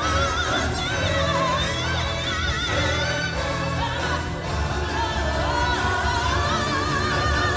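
Stage-show music with singing: voices holding wavering notes over a steady bass accompaniment.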